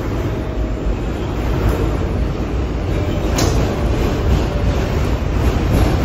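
Inside a running R142A subway car: a steady rumble of wheels on rail and motor noise, slowly growing louder. A single sharp click comes about halfway through.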